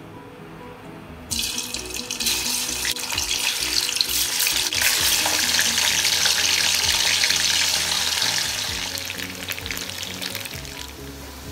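Cubes of firm tofu sizzling and crackling in hot cooking oil in a wok. The sizzle starts abruptly about a second in and fades toward the end, over background music.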